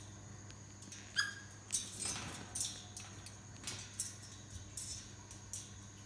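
African grey parrots making a scattering of soft, brief clicks and chirps, one every half second or so, with a short squeak about a second in.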